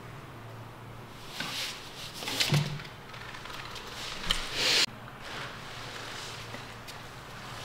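A kitten scrambling on a foam floor mat: a few short scuffling rustles, then a sharp knock and a scuff that cuts off suddenly, over a steady low hum.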